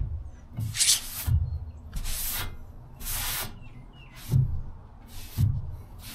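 Hand sanding: 80-grit sandpaper on a small pad rasping over fiberglass body filler in uneven strokes, roughly one a second, with dull knocks between them.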